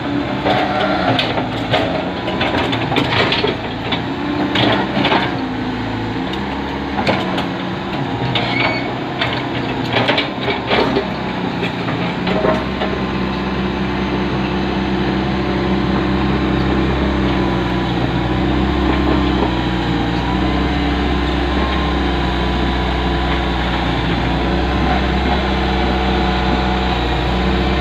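A heavy diesel engine running, with repeated knocks and clanks during the first half. After about twelve seconds it settles into a steady, deeper drone.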